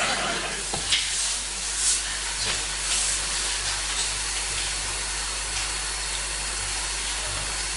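Audience applauding: steady, dense clapping that fills the pause.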